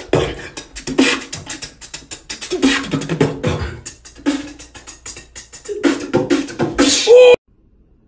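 A person beatboxing: rapid percussive mouth clicks and pops mixed with short hummed vocal tones, in a quick rhythm. It cuts off suddenly about seven seconds in.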